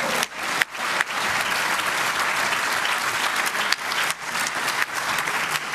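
Audience applauding: many hands clapping densely, with a few sharper single claps standing out.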